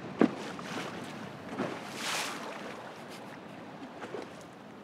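Wind and choppy lake water lapping against a bass boat. A sharp knock comes about a quarter second in, a softer one follows about a second later, and there is a brief rush of noise in the middle.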